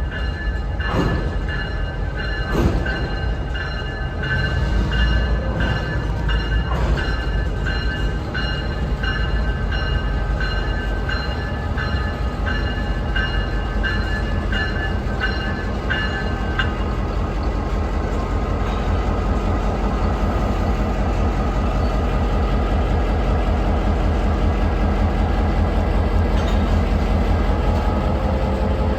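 Diesel locomotive rumbling steadily at low speed, with its bell ringing in regular strikes that stop a little over halfway through.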